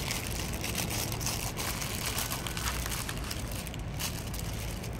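Plastic packaging crinkling and rustling as it is handled: a plastic mailer bag and the clear wrap around a flat-packed cardboard VR viewer kit.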